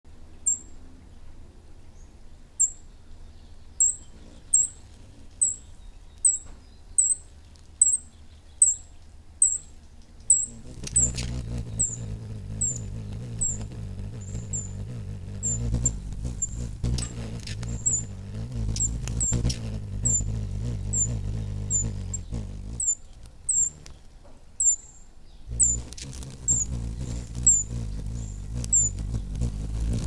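Allen's hummingbirds giving short, high chip notes over and over, about one or two a second. About eleven seconds in, a low rushing noise comes in under them. It drops out briefly a little before the end and then returns.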